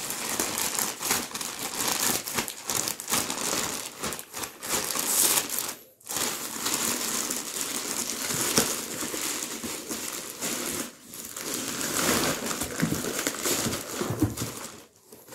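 Plastic courier mailer bag crinkling and rustling as it is opened by hand and a cardboard box is pulled out of it, with a brief pause about six seconds in.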